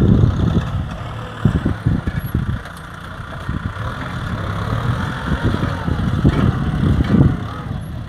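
Kubota M6040SU tractor's diesel engine running under load as it pulls a disc plough through a field, with an uneven low rumble that eases briefly about three seconds in.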